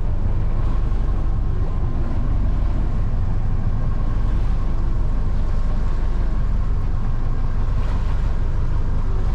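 Small motorboat under way, a steady low rumble of its running engine and the passage through the water, with a faint steady tone above it.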